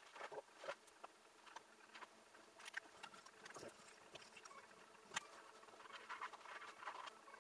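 Faint scratching and dabbing of paintbrushes on a stretched canvas, in short irregular swishes with a few sharp taps, the loudest about five seconds in.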